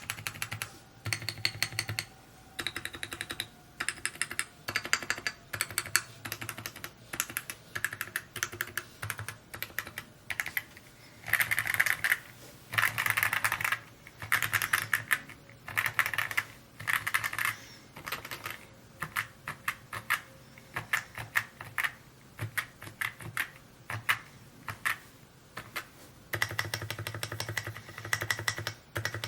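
Mode Encore 2 mechanical keyboard being typed on: rapid runs of keystroke clacks in bursts separated by brief pauses, the typing densest and loudest around the middle.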